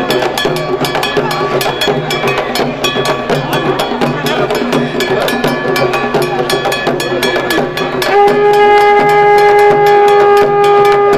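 Fast, steady drumming with sharp stick strikes, several a second. About eight seconds in, a loud held note from a wind instrument or horn joins in and stays on one pitch.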